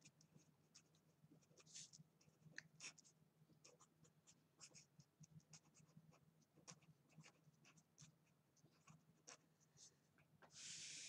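Faint scratching of a pen writing on paper in short strokes; near the end, one longer stroke of about a second as a straight line is drawn.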